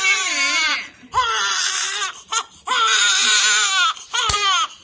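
Newborn baby crying in a run of loud wails broken by short gasps for breath, with a single sharp click about four seconds in.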